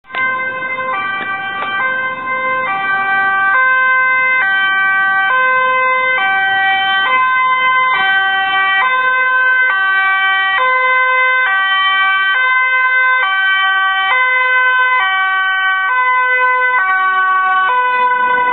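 Dutch ambulance two-tone siren on an urgent run, loud and steady, switching back and forth between a high and a low note a little under once a second.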